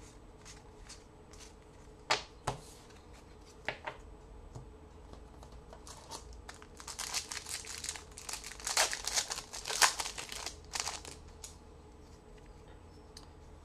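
Foil trading-card pack wrapper crinkling and tearing as a pack is opened. It is preceded by a few sharp clicks about two and four seconds in.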